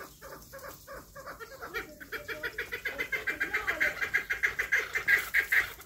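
Poultry calling: irregular short calls at first, then from about two seconds in a fast, even run of notes that grows louder and breaks off suddenly.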